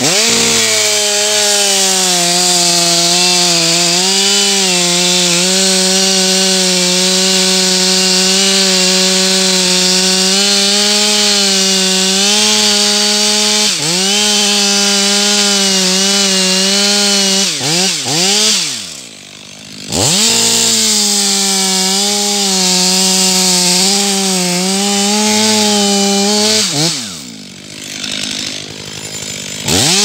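Stihl MS 500i fuel-injected two-stroke chainsaw at full throttle, cutting into a beech trunk, its pitch dipping and wavering under load. It is let off three times, briefly about halfway through and then down to idle for a second or two at about two-thirds and again near the end, revving straight back up each time.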